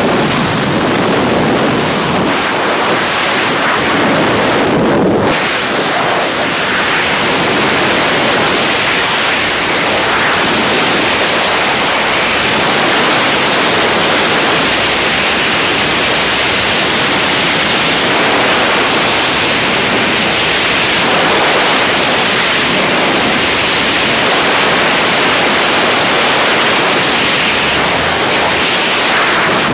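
Freefall wind rushing loudly and steadily over a skydiver's helmet-mounted camera. The first few seconds, before a brief change about five seconds in, come from inside the jump aircraft's cabin.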